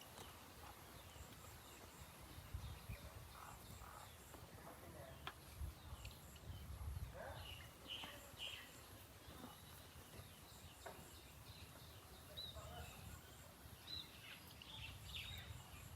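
Faint outdoor ambience: scattered short bird chirps over a low rumble, with a faint high-pitched tone that pulses on and off.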